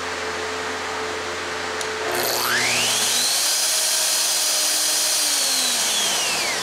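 Festool OF 2200 plunge router switched on about two seconds in. Its whine rises quickly to full speed, runs steadily for about three seconds, then falls away as it is switched off and spins down near the end. A shop fan hums steadily underneath.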